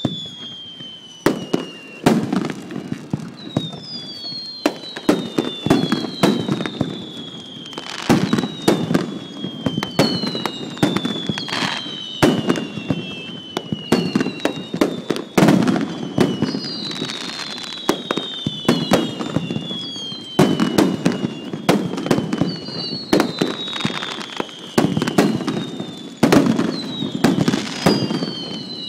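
Rapid-fire fireworks of small No. 2 (about 6 cm) shells: a steady run of bangs and crackling bursts, with high whistles that fall in pitch every couple of seconds.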